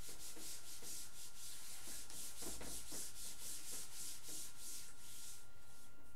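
Chalkboard duster rubbing back and forth across a blackboard, wiping off chalk: a run of quick scrubbing strokes, about four a second, that stops near the end.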